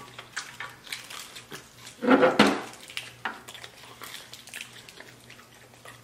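Close-miked eating sounds: chewing, lip-smacking and the small crackles and clicks of biting into crispy fried chicken wings, with a louder short burst about two seconds in, over a faint steady hum.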